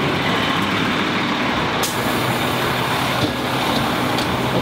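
Fire truck's diesel engine running steadily, with a short sharp click about two seconds in.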